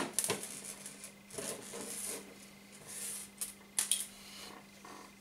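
Hands handling a finished fishing rig, a lead weight with a wire spring feeder on line, on a wooden tabletop: a sharp knock at the start, then scratchy rustling of line and fingers on the table with a few light clicks.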